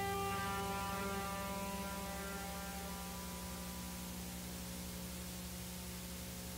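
A steady low electrical hum. The last sustained notes of music fade out over the first couple of seconds.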